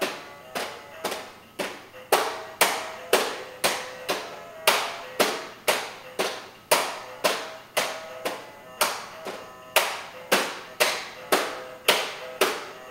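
Toddler's plastic toy steering-wheel dashboard: a steady run of sharp, ringing taps, about two a second.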